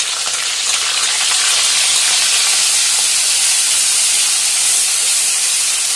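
Tomato paste frying in hot ghee and oil in a kadhai: a loud, steady sizzle that builds over the first second, just after the wet paste goes into the hot fat.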